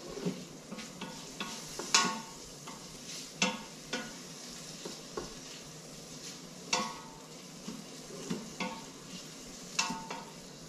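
Bacon sizzling faintly as it browns in an Instant Pot on sauté, while a utensil stirring it scrapes and knocks against the stainless steel inner pot every second or so; a few of the knocks ring briefly.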